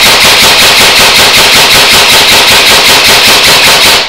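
Custom M16 airsoft electric gun firing a long full-auto burst: an AIMS 8mm ball-bearing gearbox with an M120 spring, driven by a Guarder high-torque motor, cycling in a rapid, even stream of shots. The burst stops abruptly near the end.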